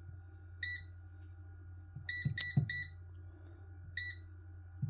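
Tower 5-in-1 air fryer's touch control panel beeping as its buttons are pressed to set the temperature and timer. There is a single short beep, then three quick beeps about two seconds in, then another beep near the end.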